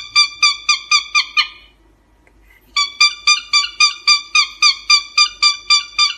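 Cockatiel calling in a rapid run of short, same-pitched chirps, about five a second, with a pause of about a second and a half near the start before it resumes.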